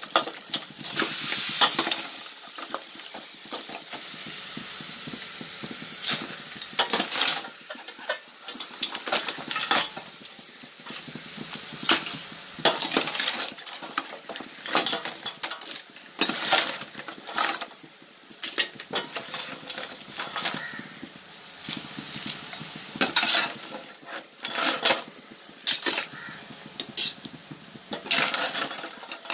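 Pre-cooked crabs being scooped by hand out of a stainless steel vessel into a cooking pot: irregular clatter and clinks of crab shells against steel, with a steady hiss for the first few seconds.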